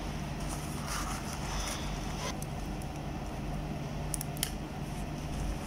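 Light scraping and two small clicks about four seconds in, as a knife blade works at the tape and varnish on a ferrite transformer's bobbin. A steady low hum runs underneath.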